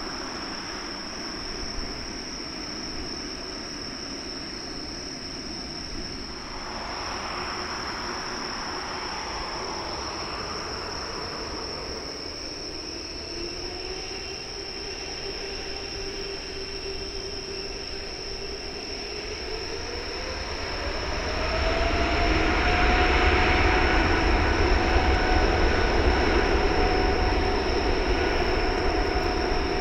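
Boeing 777-300ER's GE90-115B turbofan engines running with a steady whine, then spooling up to takeoff thrust about twenty seconds in. The whine rises in pitch and a deep rumble grows louder.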